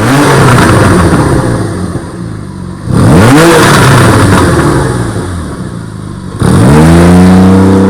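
A car engine revved three times, each rev rising sharply in pitch and falling back; the third is held at a steady high pitch near the end.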